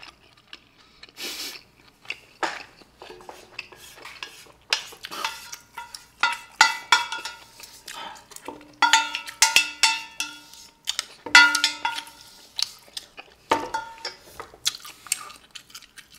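A spoon scraping and knocking around the inside of a thin stainless-steel pan to gather the last of the sauce. Several knocks set the pan ringing with a held metallic tone, most clearly about nine and eleven seconds in.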